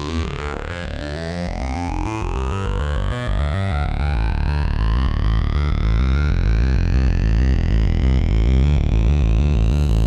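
Modal Electronics Carbon 8x digital synthesizer playing a bass-heavy patch with fast repeating notes, while several bright overtones glide steadily upward. It grows gradually louder.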